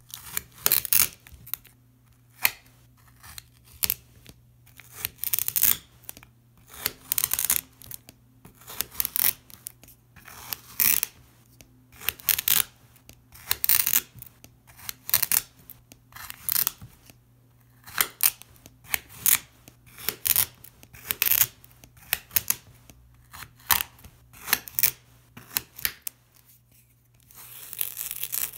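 Knife blade cutting again and again through a block of packed sand on a mirror, each cut a sharp gritty crunch, about one a second. Near the end comes a longer, drawn-out crunch.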